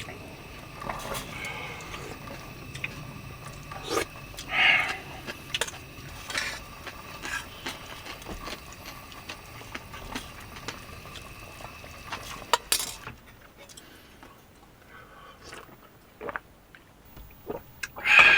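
Dishes and cutlery clinking and knocking now and then, with the loudest clink right at the end.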